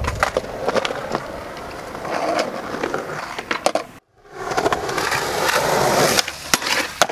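Skateboard wheels rolling on concrete, with sharp clacks and knocks of the board. The sound cuts out briefly about four seconds in, then the rolling starts again.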